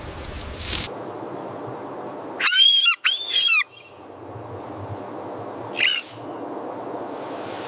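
A bird calls twice in quick succession with loud, arching cries, then gives a fainter, shorter call about three seconds later.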